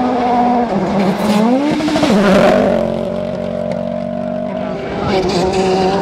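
Ford Fiesta RS WRC rally car's turbocharged four-cylinder engine at full throttle on a gravel stage, its pitch climbing and dropping with gear changes, with a spray of loose gravel about two seconds in. After that a car's engine holds a steadier note, then rises again near the end.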